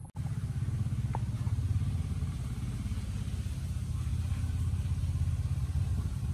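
Small motorcycle engine idling: a steady low rumble with a rapid even pulse.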